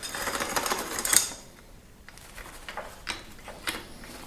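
Bicycle chain clicking and clattering against the chainring as it is worked off by hand: a dense run of rapid metallic clicks for about the first second, then scattered lighter clicks.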